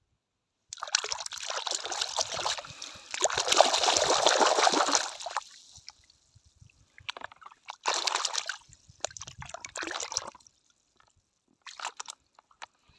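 Water pouring and splashing over plastic toy animals as they are washed: one long pour of about five seconds, then three shorter splashes.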